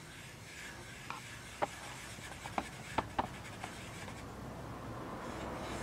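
Black felt-tip permanent marker rubbing and scratching on construction paper as a round nostril is coloured in, with a few sharp ticks in the middle.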